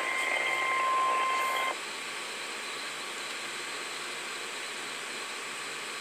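NOAA Weather Radio warning alarm tone, a single steady beep of about 1050 Hz, sounding the start of a severe thunderstorm warning. It cuts off sharply about two seconds in, leaving a steady hiss from the broadcast feed.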